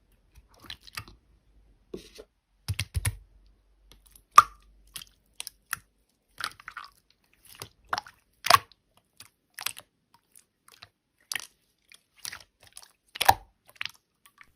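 Slime being squeezed and pressed by hand, giving irregular crisp clicks and crackling pops a few times a second.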